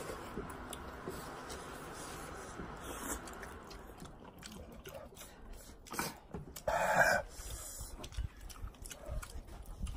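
A person eating spicy Korean noodles, chewing and slurping, with one louder short sound about seven seconds in.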